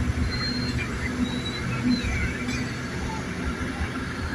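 Heavy mining equipment running, a steady low rumble with faint high squeaks over it.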